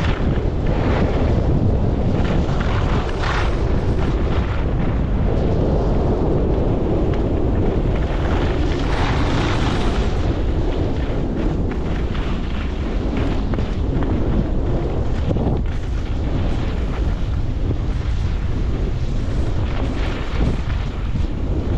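Wind buffeting the action camera's microphone as a skier runs downhill at about 35 km/h, a steady heavy rumble, with the intermittent hiss and scrape of skis carving across packed snow.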